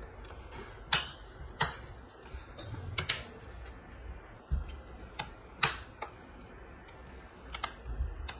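Plastic snap clips of a laptop's bottom cover clicking into place as the cover is pressed shut: a series of sharp clicks at uneven intervals.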